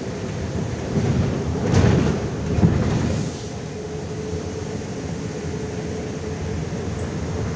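Interior noise of a moving MAZ-105 articulated city bus: a steady engine and road drone with a constant hum above it, and a short run of louder knocks and clatter about one to three seconds in.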